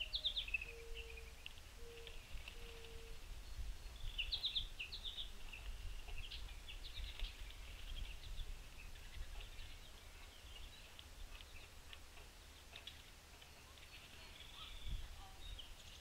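Wild birds chirping and calling, many short high notes in uneven clusters, with a row of short low hoot-like notes in the first three seconds and a faint low rumble underneath.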